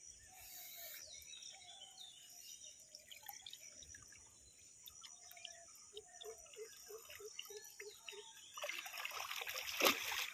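Shallow muddy pond water being churned and splashed by hand at the bank, loud from about eight and a half seconds in. Before that, faint trickling water and a quick run of short chirps, about four a second.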